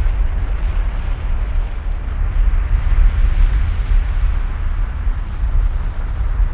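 Kilauea's erupting lava fountain giving a continuous deep, rumbling roar, a little stronger about three seconds in.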